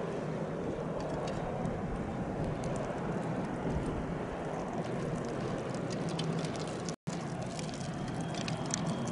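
Large Ro-Ro passenger car ferry under way close by: a steady low engine drone under a rushing hiss. The sound cuts out for a split second about seven seconds in.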